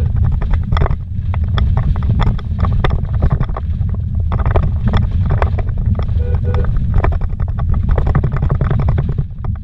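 Car driven fast on a rough dirt road, heard from inside the cabin: a heavy, steady rumble of tyres and engine, broken by frequent knocks and rattles as the car bounces over the ruts.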